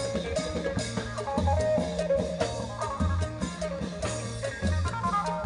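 Isan festival procession band music amplified through horn loudspeakers: a stepping melody over a steady drum beat with percussion ticks.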